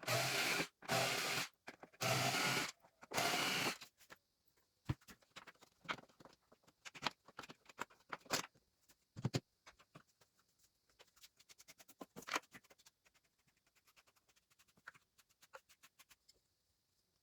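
Powered screwdriver run in four short bursts of about half a second each in the first few seconds, followed by faint scattered clicks and taps of plastic parts and screws being handled.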